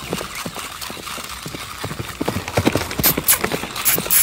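Electric walking toy horse making a clip-clop of hoofbeats as it walks. A few short, loud hissing bursts come about three seconds in and again near the end.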